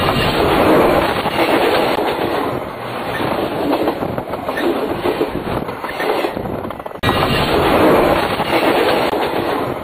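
A train rolling directly overhead on the rails: loud, continuous wheel-on-rail rumble and clatter. The noise breaks off abruptly about seven seconds in and comes straight back just as loud.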